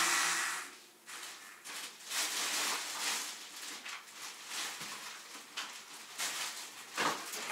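Plastic grocery bag rustling in irregular bursts as items are handled and taken out of it.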